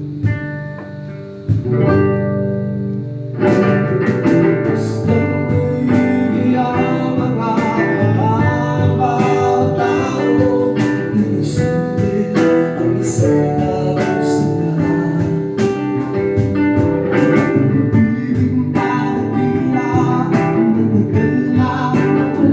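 Music with guitar and singing. Held notes for the first few seconds, then about three and a half seconds in a steady beat comes in under the guitar and voice.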